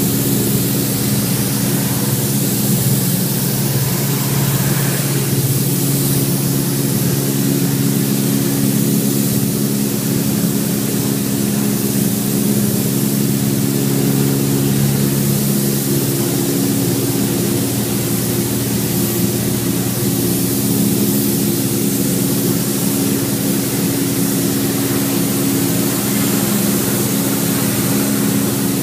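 Steady machine hum made of several even tones, with a constant hiss over it.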